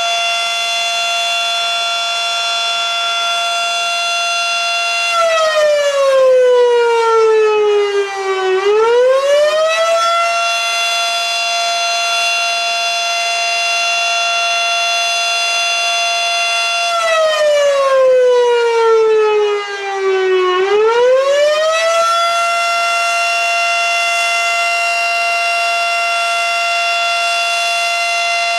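Federal Signal Model 5 mechanical fire siren sounding a wail. A loud, steady high tone is held for several seconds, then twice slides down in pitch and winds quickly back up.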